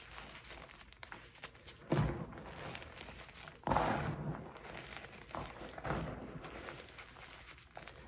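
Hands squeezing and crushing soft dyed gym chalk powder in a bowl, making soft crunches and crackles, with two louder crunches about two and four seconds in.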